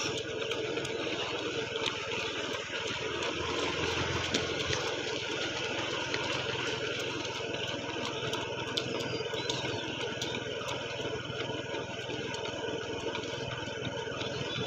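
Steady running hum of a slowly moving motor vehicle's engine, with road noise and faint ticks from the runners' footfalls.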